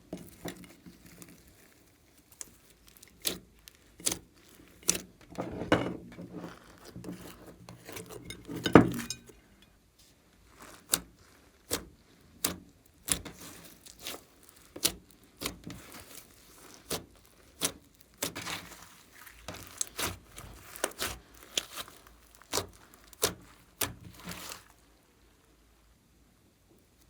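Glossy slime being pressed and worked by hand, with sharp sticky clicks and crackles from air pockets popping, some in quick clusters and some about a second apart. The sounds stop shortly before the end.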